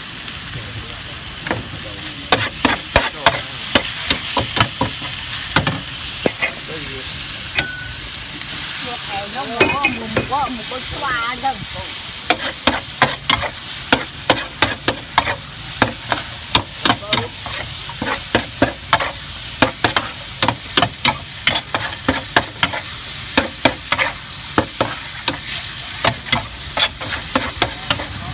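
Noodles sizzling on a hot flat griddle, with a metal spatula and tongs clattering and scraping against the iron in many quick, irregular strikes as they are tossed.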